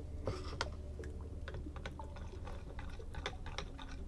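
Metal spoon scraping and tapping against a glass jar and a stainless steel travel mug, a run of light, irregular clicks several times a second, over a low steady hum.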